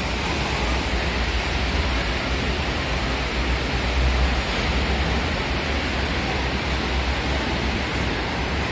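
Steady rushing air noise with an uneven low rumble: air blowing across the phone's microphone.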